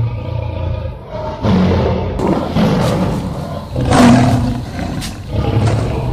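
Several overlapping animal roars in a continuous run, lion roars among them, loudest about four seconds in.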